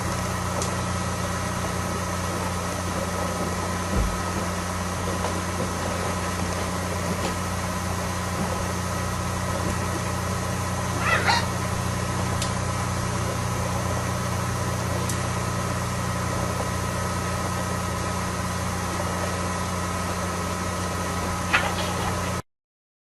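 Steady low hum and hiss with a couple of short budgerigar chirps, one about halfway through and one near the end. The sound cuts out completely for a moment just before the end.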